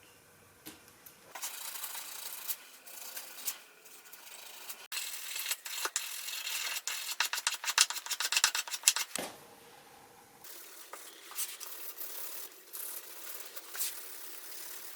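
Rubbing and scraping strokes of hand work on the knife. They start after about a second, come fast and loud around the middle, then turn lighter and sparser.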